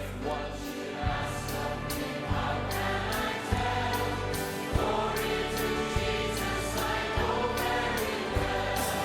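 Gospel choir music: a group of voices singing over bass with a steady drum beat.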